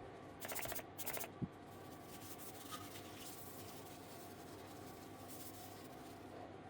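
Two short hissing spray bursts from a hand spray bottle in quick succession, followed by a single low knock.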